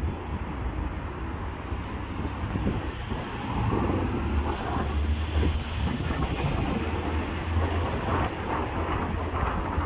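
Steady low engine rumble with wind buffeting the microphone, growing a little louder about three and a half seconds in.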